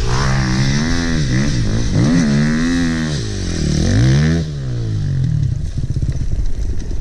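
Enduro motorcycle engine revving up and down repeatedly under load as it climbs a steep dirt slope. About four and a half seconds in, the revs drop and it runs at a lower pitch.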